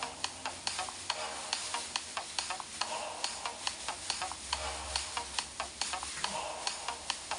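A black plastic bin-bag skirt crinkling and crackling as the wearer shakes her hips in a dance, with a run of sharp crackles a few times a second.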